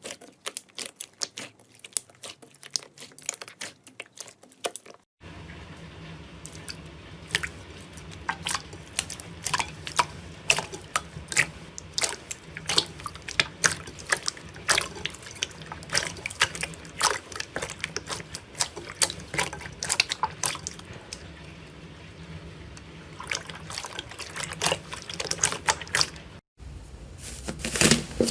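Slime being squeezed, poked and stretched by hand, giving dense irregular wet clicks, pops and squelches, in three clips that cut at about five seconds in and again near the end.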